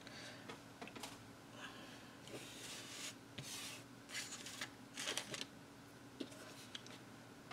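Faint rustling and light taps of paper and cardstock being handled on a cutting mat, in a few short spells through the middle.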